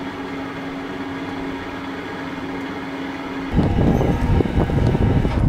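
Crane engine running steadily with a constant hum while it holds a log on its hook. About three and a half seconds in this gives way abruptly to a louder, uneven rumbling noise with scattered clicks.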